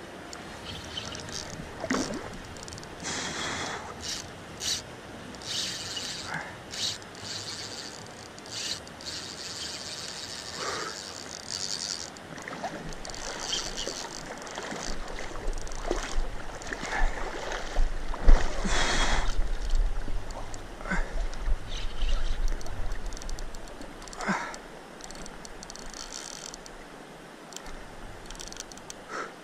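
Spinning reel's drag giving line in short, irregular bursts as a big hooked catfish pulls against the bent rod, with a low rumble through the middle of the fight.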